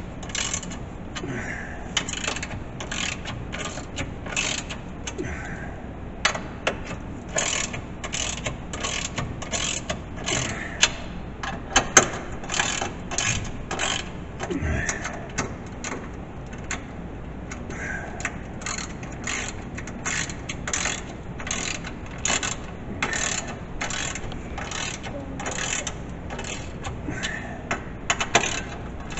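Hand socket ratchet clicking in steady back-and-forth strokes, about two a second, turning a bolt.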